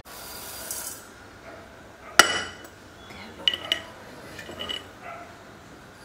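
Dry red lentils pouring from a small glass into a steel pot with a rushing hiss. About two seconds in comes one sharp clink, then several lighter glassy clinks as the glass scoops more lentils from a glass jar.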